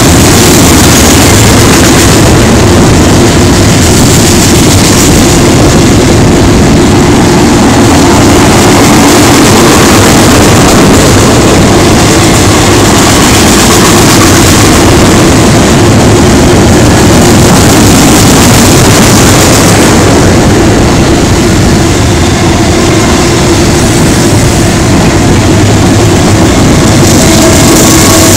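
Freight train of double-stack container cars rolling past, a loud, steady rumble and rush of steel wheels on rail.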